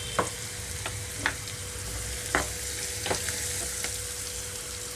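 Chopped onions, green chillies and curry leaves sizzling in hot oil in a pan, with a spatula stirring them and tapping sharply against the pan several times.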